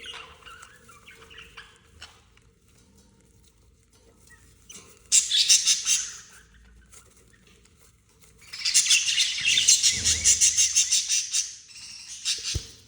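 Budgerigars in a nest: soft chirps, then two loud bursts of fast, buzzy chattering, a short one about five seconds in and a longer one from about eight and a half seconds, followed by a low thump near the end.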